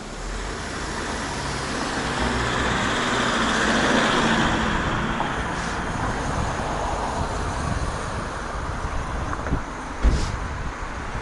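Road traffic heard from a moving bicycle: a motor vehicle passes close by, swelling and then easing off, over wind noise on the microphone. A single sharp knock comes near the end.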